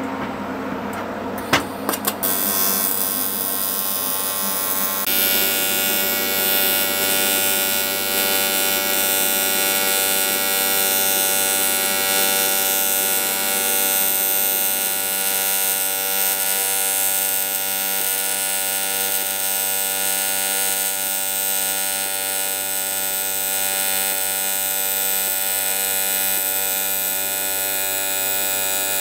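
AC TIG welding arc on an aluminium motorcycle crankcase: a steady electrical buzz with a bright hiss over it. It starts about two seconds in, after a couple of sharp clicks, and holds steady with a slight step up in the hiss a few seconds later.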